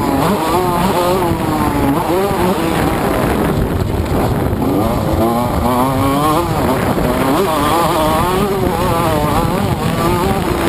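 TM MX 125 two-stroke motocross bike engine heard up close from the bike, revving hard and dropping back again and again as the throttle is worked.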